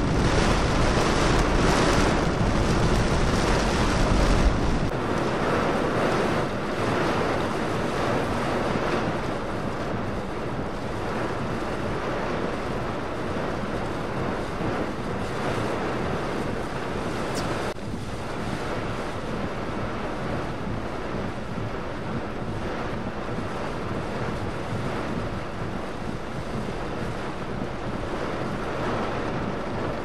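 Heavy rain from a severe thunderstorm pelting a moving vehicle, with tyres hissing on the flooded road. Strong wind buffets the microphone with a heavy rumble for the first five seconds or so, then eases, leaving a steady downpour.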